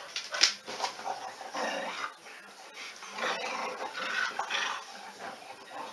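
A dog vocalizing in several short bouts over a few seconds, the sharpest about half a second in.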